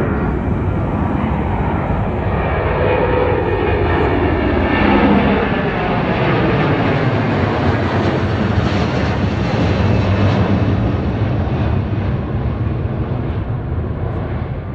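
Twin-engine jet airliner climbing and passing low overhead: a loud, steady jet-engine roar with a whine that falls in pitch as it goes over, easing off slightly near the end as it moves away.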